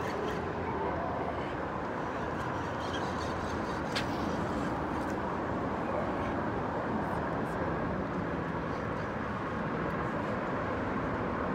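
Steady rumble of traffic on the highway bridge overhead, with one sharp click about four seconds in.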